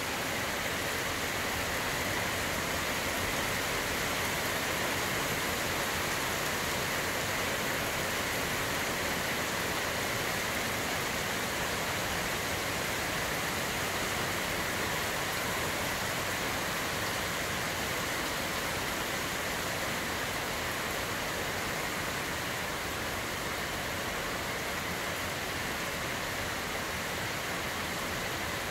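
Heavy rain pouring down in a steady, dense hiss, with no breaks or thunderclaps.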